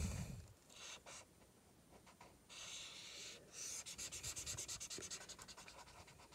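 Black Crayola marker drawing on sketchbook paper: a few separate scratchy strokes, then from about four seconds in a run of quick back-and-forth strokes, several a second, filling in a dark area.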